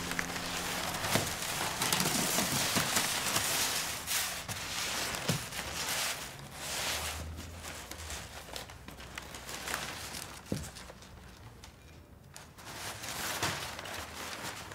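Paper rustling and crinkling as a large folded-paper honeycomb is handled and pressed, with a few sharp clicks. It is louder in the first few seconds, fades around two-thirds of the way through, then picks up again near the end.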